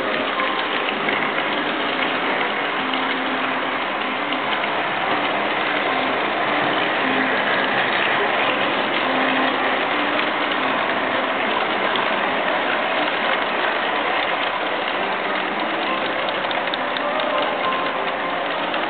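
HO-scale model freight train rolling steadily past at close range: a continuous rattling clatter of the cars' wheels on the track, with blues music faint underneath.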